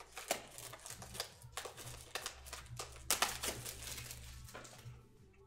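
Foil wrapper of a trading-card pack crinkling and rustling in the hands as it is worked open, in irregular crackles that peak about three seconds in. A steady low hum lies underneath.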